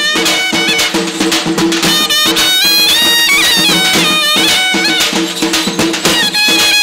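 Traditional folk music: a reedy wind instrument plays a stepping melody over a steady low drone, with drums beating throughout.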